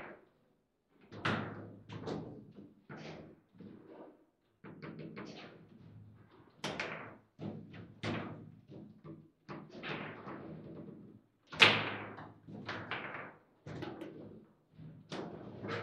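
Table football game in play: irregular sharp knocks and clacks as the ball is struck by the rod figures and hits the table, with the rods clattering, the loudest hit about twelve seconds in.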